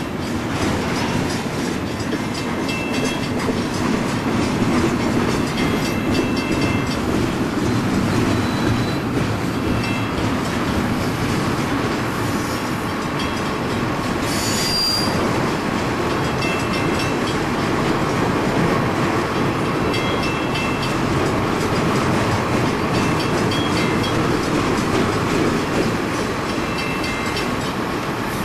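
Double-stack intermodal train's container well cars rolling past: a steady rumble of steel wheels on rail, with short high wheel squeals now and then and a brief sharper squeal about halfway through.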